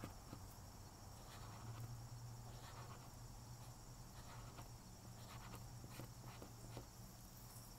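Felt-tip marker rubbing on paper in short, irregular strokes, the side of the tip filling in a large area; faint, over a low steady hum.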